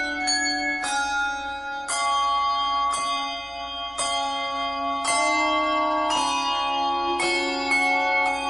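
Instrumental music of struck bell tones, a new note about once a second, each ringing on into the next.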